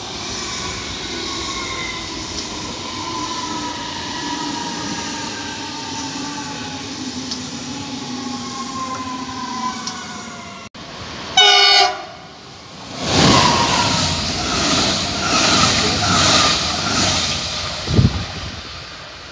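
Red Stuttgart S-Bahn class 430 electric multiple unit passing, its electric traction motors whining in several tones that glide slowly downward. About halfway through comes a short train horn blast, then the loud rushing rumble of a red double-deck regional train approaching, pulsing evenly, with a thump near the end.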